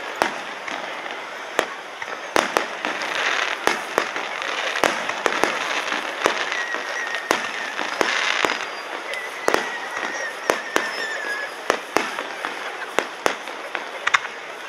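Fireworks display: aerial shells bursting overhead in a steady run of sharp bangs at irregular intervals, some in quick succession.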